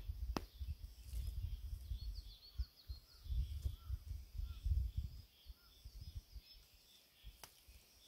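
Small birds chirping and calling again and again, over a low rumble that swells and fades. Two sharp clicks, one just after the start and one near the end.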